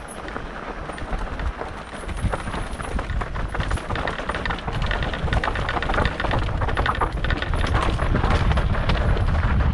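Mountain bike descending a rough downhill trail: tyres rolling over dirt and rocks with the bike clattering and rattling, over a low rumble. It grows louder as the run picks up speed.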